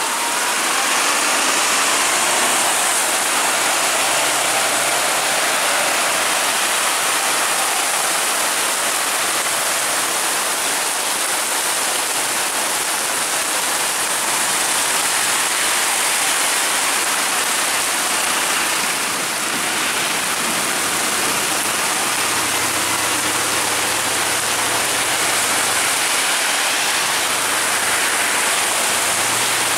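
Heavy rain pouring steadily, with the low running of bus engines faintly underneath a few seconds in and again past the middle.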